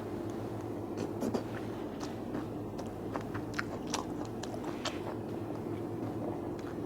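Close-up chewing of a mouthful of rice mixed with stir-fried pork, with scattered short wet mouth clicks, over a faint steady low hum.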